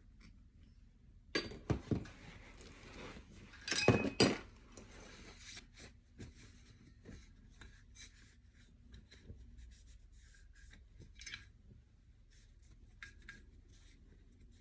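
Small metal AR-15 parts being handled and wiped during cleaning: scattered clicks, light clinks and rubbing. The loudest clatters come about a second and a half in and again around four seconds in, with faint ticks and scrapes after.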